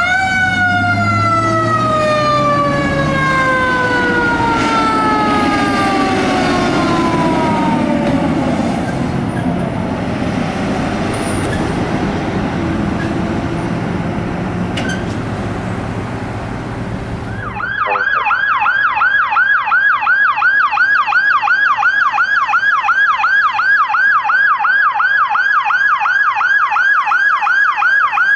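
Fire truck siren winding down in one long falling wail over the truck's engine rumble and road noise. Then, from about two thirds of the way in, another fire truck's yelp siren sweeps rapidly up and down, about three times a second.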